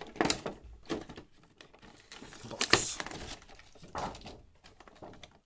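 Clear plastic blister packaging crinkling and clicking as it is handled, in irregular crackles with a few sharper snaps, the loudest a little past the middle.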